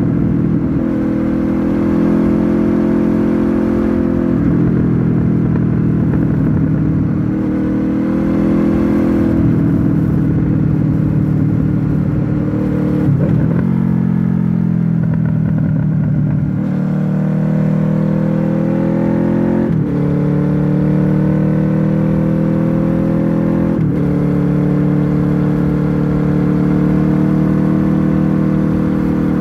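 Honda VFR800F's V4 engine through an SC-Project aftermarket exhaust, running under way on the open road. Its note rises and falls with the throttle, with several sudden shifts in pitch.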